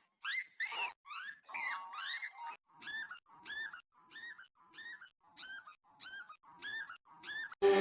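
Pitch-shifted sample of a bunny sneeze repeated over and over in a remix: short squeaky calls, each rising then falling in pitch. At first several overlap at different pitches, then they settle into an even run of about two a second. Music cuts in just before the end.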